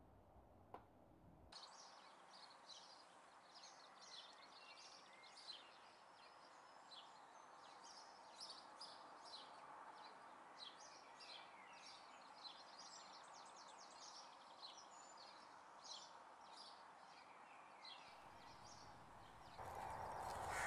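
Faint chorus of small songbirds, many short high chirps and trills over a soft hiss, starting about a second and a half in after a near-silent start with a single click. Near the end a louder rushing noise comes in.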